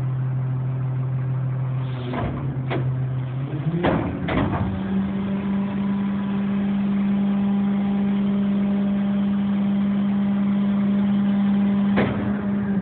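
Diesel engine of a 2009 Crane Carrier LET2-45 refuse truck idling, then stepping up to a steady higher speed about four seconds in while the Heil 5000 rear loader's hydraulic packer runs, and dropping back toward idle at the end. A few sharp clunks come near the start and one near the end.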